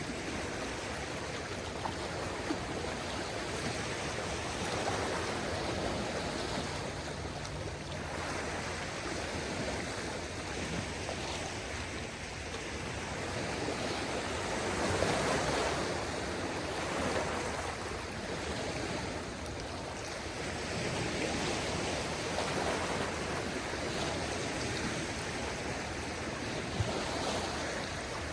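Small waves of a calm sea washing ashore, a steady wash that swells and eases every few seconds.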